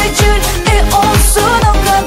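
Background dance-pop music with a steady beat: a deep kick that drops in pitch about twice a second, under a wavering melody.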